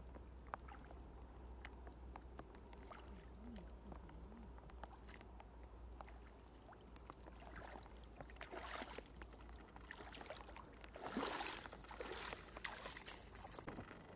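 Faint sloshing and trickling of shallow water as hands move through it, then louder splashing from about two-thirds of the way in as someone wades through shin-deep water.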